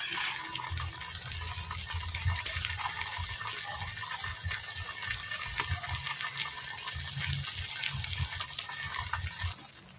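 Wok over a wood fire heating a sealed foil packet of fish in sauce: a steady rushing hiss with scattered faint crackles and a wavering low rumble.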